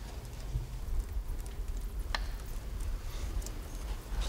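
Quiet room tone with a steady low rumble, broken by a single sharp click about two seconds in.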